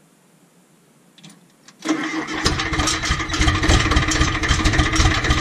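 Caterpillar 931 track loader's diesel engine cranked on the starter and trying to catch, coming in suddenly just under two seconds in with a fast, even pulsing. A few faint clicks come just before it.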